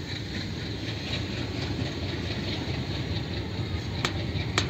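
Passenger train coaches rolling slowly out of the station, a steady low rumble with two sharp clicks near the end.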